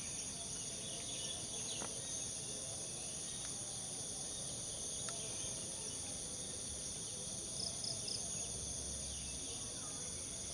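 Steady high-pitched chorus of insects in trees, several shrill tones held at once without a break, with three quick chirps about eight seconds in.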